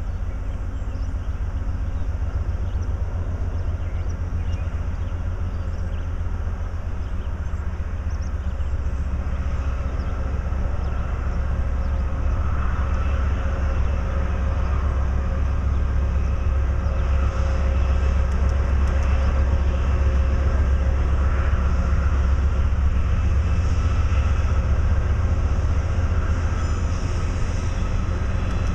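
Diesel freight locomotives running, a steady low engine rumble with a faint steady whine above it, growing gradually louder as the train approaches.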